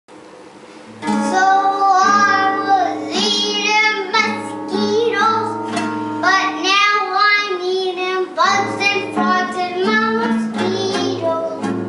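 A child singing a song to a plucked-string accompaniment, the singing coming in about a second in.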